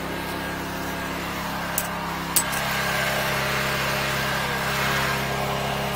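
Engine of a 13-horsepower high-pressure sewer jetter running steadily. Two sharp clicks come about two seconds in, after which the sound grows a little louder.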